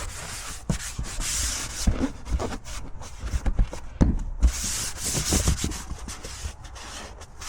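Engine-bay surfaces being wiped down with a cloth: stretches of scrubbing rub with several light knocks and handling thumps in between.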